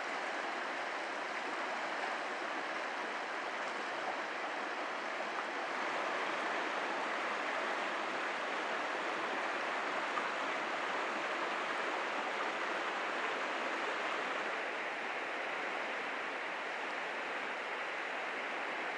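A river rushing over shallow, boulder-strewn riffles: a steady, even rush of moving water.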